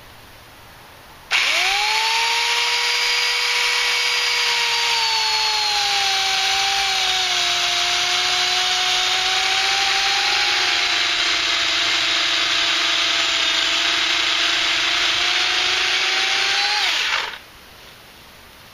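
Remington Limb N Trim 8-amp 14-inch electric chainsaw spinning up about a second in and sawing into a large birch stump. Its motor whine sinks slowly in pitch as the cut loads it, then winds down and stops near the end. The chain is not spinning fast enough to give a smooth cut, and it does not make it through the stump.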